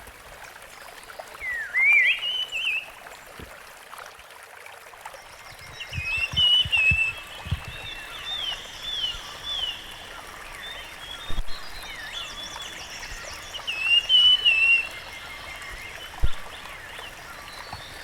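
Rusty-fronted barwings calling: bursts of whistled, up-and-down phrases, with a run of repeated falling notes, about two a second, some seven to ten seconds in. A steady soft background hiss and a few brief low thumps lie underneath.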